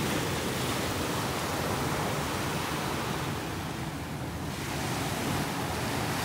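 Small ocean waves breaking and washing up onto the sand, a steady rush of surf that eases briefly about four seconds in and then swells again.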